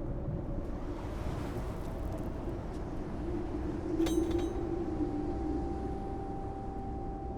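Steady low rumble, like a passing train or heavy vehicle, with a sharp metallic clink about four seconds in, after which a steady hum tone joins.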